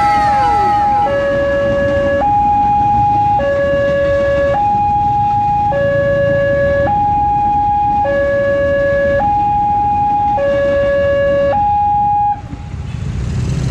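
Railway level-crossing warning alarm: an electronic two-tone signal alternating high and low, each tone lasting a little over a second, over a steady rumble of traffic. It stops near the end.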